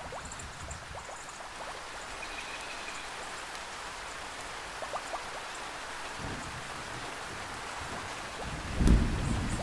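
Steady rainforest rain hissing, with scattered drips. Near the end a low roll of thunder rises over the rain and is the loudest sound.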